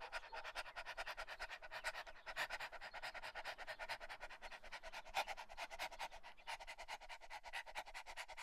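Dog panting fast and evenly, about six quick breaths a second.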